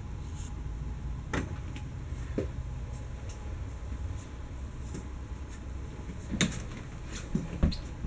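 A steady low rumble with a few scattered knocks and clicks, the loudest about six and a half seconds in and two near the end: footsteps on the floor of a travel trailer and handling noise from a camera being carried through it.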